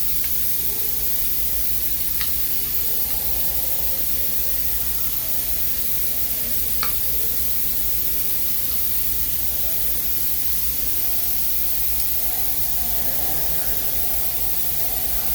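Steady hiss and low hum of machine-shop background, with a few faint clicks about 2, 7 and 12 seconds in as the plate is clamped into the mill fixture with an Allen key.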